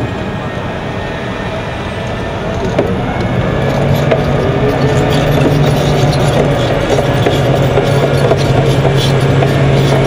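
M1 Abrams tank on the move: its gas-turbine engine running with a steady low drone that grows louder about three and a half seconds in, and the steel tracks clattering and rattling as it rolls.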